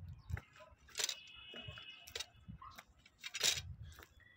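Footsteps crunching over dry pine needles and leaf litter, uneven strides with a soft thud at each step. A high steady note, lasting about a second, sounds about a second in.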